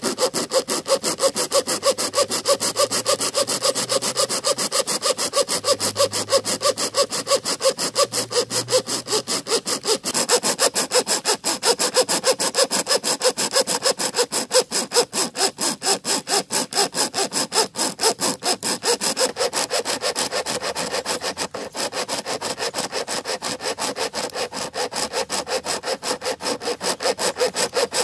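Pocket chainsaw, a hand-pulled saw chain, drawn back and forth around a standing tree trunk: a steady rhythm of rasping strokes as the chain cuts into the wood. There is a brief break a little past two-thirds of the way in.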